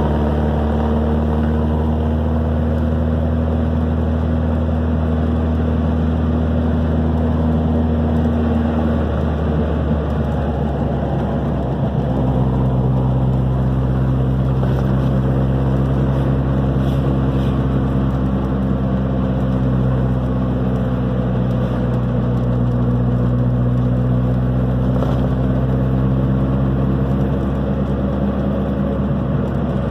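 Vehicle engine running steadily under way, heard from inside the cabin over road noise; the engine note shifts to a new steady pitch about ten seconds in.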